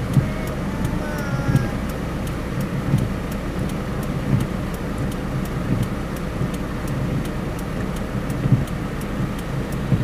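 Inside a car driving slowly on a rain-soaked road: steady engine and tyre noise on the wet surface, with the windscreen wipers sweeping and a small swell in the noise about every second and a half.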